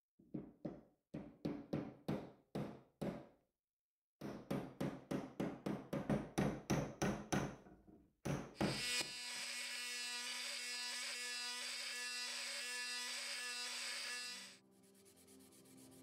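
A yellow-handled hammer striking small wooden wedges into the eye of a smith's hammer head to tighten the new handle: about eight blows, a short pause, then a quicker run of about a dozen blows. A steady noise then holds for about five seconds and cuts off, leaving faint rubbing near the end.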